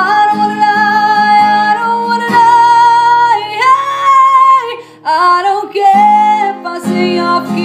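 A woman singing a series of long held notes, each a little higher than the last, over acoustic guitar accompaniment.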